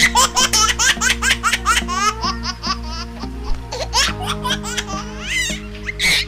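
A baby laughing in quick repeated bursts over a steady background tune.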